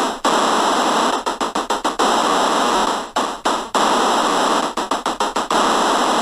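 Loud harsh synthesized white noise used as a music part, with a few faint high tones on top, broken several times by quick stuttering dropouts.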